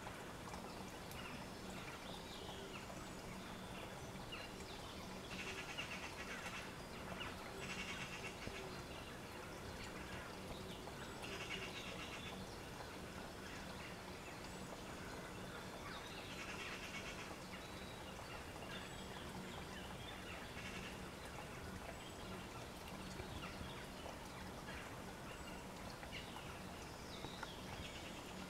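Faint rural outdoor ambience with a steady low hum, broken four or five times by short bursts of a rapid, high-pitched chirring animal call, each about a second long.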